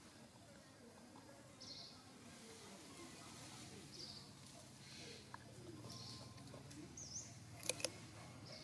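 Faint bird chirps, short and high, about once a second over a low hum. Near the end come two sharp crunches, a monkey biting into a piece of carrot.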